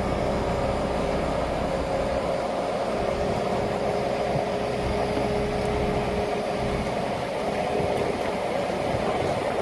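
Mobile crane's engine and hydraulics running steadily while it lifts and swings a steel barge, a continuous hum and low rumble with a steady tone over it.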